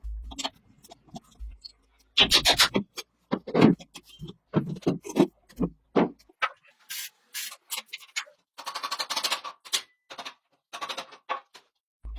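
Workshop hand-work noises: irregular rubbing and scraping strokes with light knocks, and a quick run of short rasping strokes about two-thirds of the way through.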